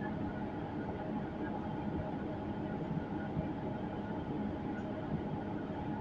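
Steady hum and rumble of a city transit bus running, heard inside the passenger cabin from a rear seat, with an even, unchanging engine and drivetrain drone.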